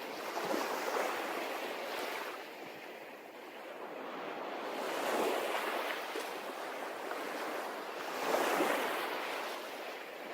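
Sea waves washing in, the surf swelling and falling back three times.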